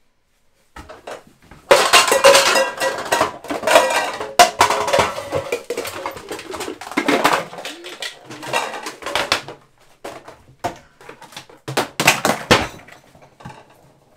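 Kitchen dishes and cutlery clattering and clanking, a long irregular run of loud knocks with some brief ringing, stopping just before the end.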